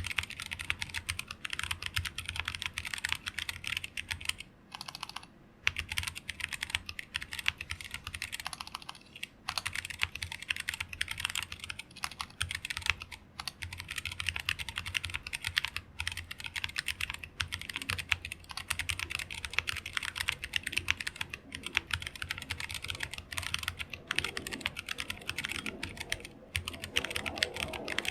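Fast, continuous typing on a mechanical keyboard fitted with stock, unlubed Zealios V2 tactile switches (67g springs) on a plateless hotswap 60% board. The typing breaks off briefly about five seconds in.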